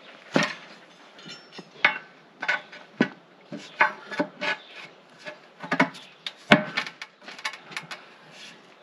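Steel tyre irons knocking, clanking and scraping against a steel wheel rim as the bead of a large muck spreader tyre is levered over the rim: irregular sharp metallic knocks, about a dozen, the loudest about six and a half seconds in.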